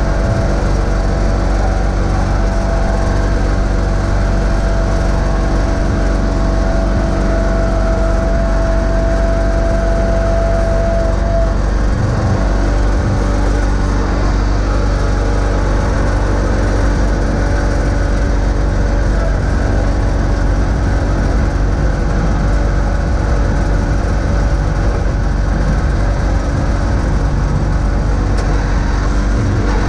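John Deere X585 garden tractor engine running steadily under load while pushing snow with a front blade, with a steady whine over it that stops about eleven seconds in.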